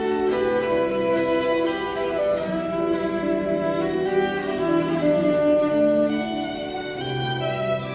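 Violin playing a melody in long held notes over a lower accompaniment.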